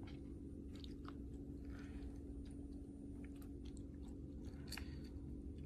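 Faint handling noises: a few light, scattered clicks and a short rustle, with one sharper click near the end, over a steady low hum.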